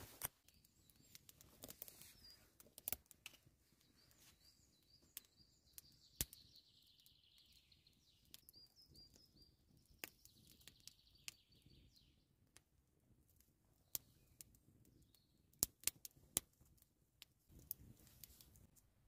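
Small wood fire of split kindling and feather sticks crackling as it catches, with sparse sharp pops and snaps at irregular intervals. Birds chirp faintly in the background.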